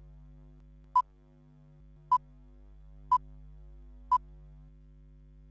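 Four short, high electronic beeps about a second apart over a low steady hum.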